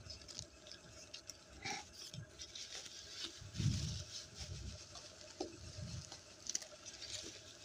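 Quiet rustling and crinkling of a taped cardboard parcel being opened by hand and its bubble-wrap packing pulled about, with a few soft bumps of hands against the box near the middle.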